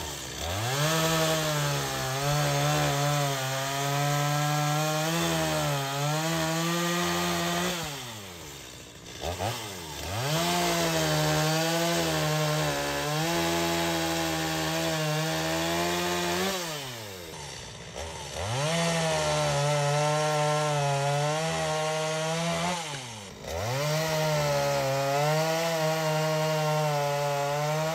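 Stihl MS250 two-stroke chainsaw revving up and cutting through a felled cedar log at full throttle, dropping back to idle between cuts; four cuts in all, as the trunk is bucked into firewood lengths.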